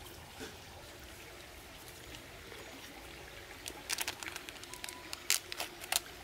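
A small paper sachet of powder being torn open and crinkled in the hands: a quick run of sharp crackles in the second half, over a faint steady stream-like background.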